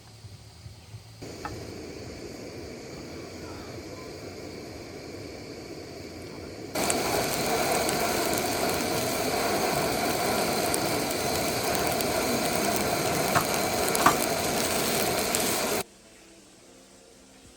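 Steady rushing water, as of a waterfall, heard in two cut shots: moderate at first, then much louder from about seven seconds in, stopping abruptly near the end.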